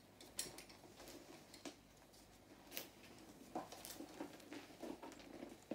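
Faint handling sounds of a leather belt with a metal plate buckle and a handbag's metal hardware: a few sharp clicks spaced a second or so apart, then a short run of soft knocks and taps in the second half.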